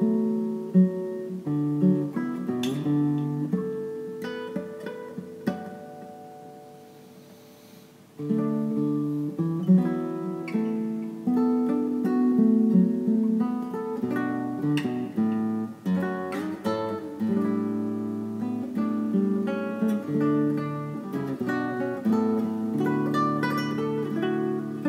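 Solo classical guitar, fingerpicked melody over plucked chords. About a quarter of the way in, a chord is left to ring and die away for several seconds before the playing starts again sharply.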